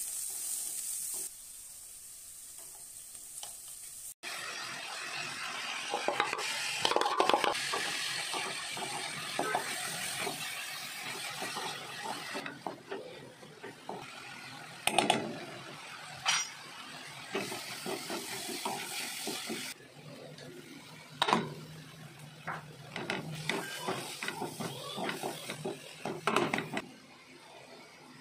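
Onions and spices sizzling in oil in a kadai, then shredded cabbage stirred and tossed with a wooden spatula: a steady frying sizzle with rustling, scraping strokes and a few sharp knocks of the spatula against the pan.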